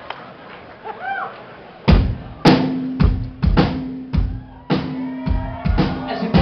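Rock drum kit starting a song live, bass drum and snare hits coming about every half second to a second from about two seconds in, over a held low note.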